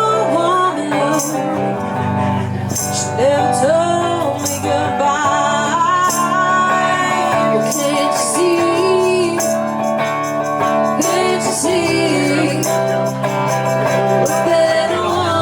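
Live band playing an instrumental passage with no vocals: a lead guitar line with bending notes over bass and drums with cymbals.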